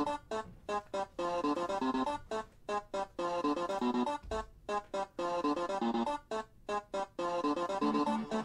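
Electronic background music with keyboard chords in a choppy, stop-start rhythm.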